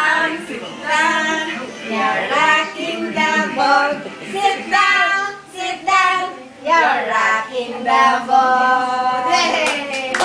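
A child's high singing voice carrying a nursery-rhyme melody, with held notes and short breaks between phrases.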